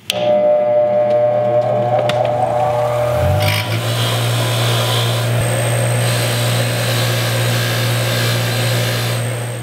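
Bench grinder switched on, its motor humming and whining up in pitch as the wheel spins up. From about three and a half seconds in, a steady grinding hiss as a rusty brake rotor screw is held against the spinning wheel to clean the rust off; the grinding stops near the end.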